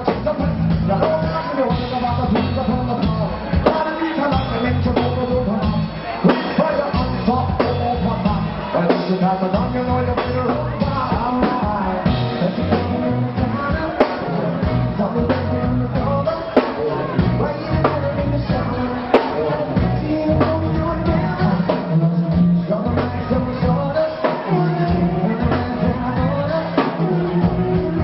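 Rock music with singing over a steady drum beat and bass.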